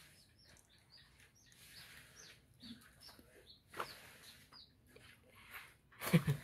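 Small birds chirping repeatedly in short, high, falling chirps, over soft crunching as kittens eat dry cat food pellets. A louder knock sounds about six seconds in.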